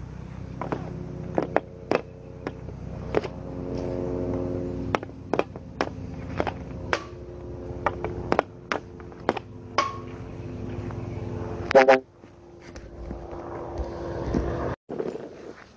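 Hockey stick blade clacking against a puck on a plastic shooting pad during stickhandling and shots: irregular sharp clacks, one or two a second, crowding together toward the loudest hit about twelve seconds in. A steady droning hum runs underneath and fades out at about the same point.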